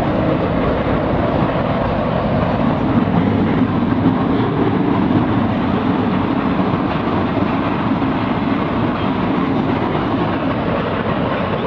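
Steady, loud rushing rumble of turbulent tsunami floodwater churning around the ship.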